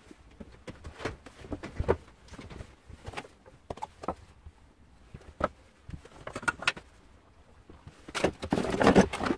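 Footsteps and scattered knocks as objects are handled in a workshop, with a louder burst of clatter and rummaging near the end.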